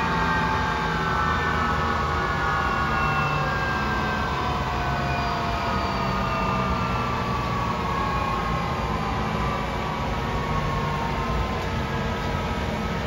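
General Electric CF6 turbofan on an Airbus A330-300 spooling down after shutdown: several whining tones fall slowly and steadily in pitch over a steady rushing noise.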